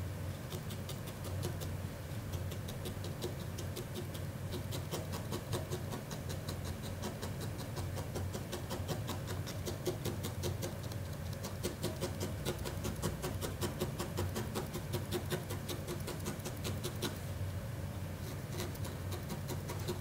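Felting needle stabbing repeatedly into wool, several quick pokes a second, with a short pause about three seconds before the end.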